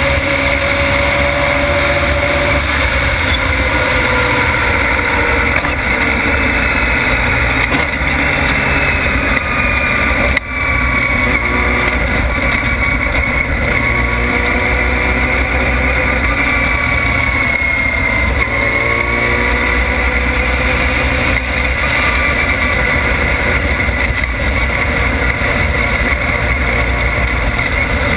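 Formula Mazda race car's rotary engine at racing speed, heard from the onboard camera with wind rushing over the car. The engine pitch climbs and falls through gear changes and corners. There is a brief drop in loudness about ten seconds in.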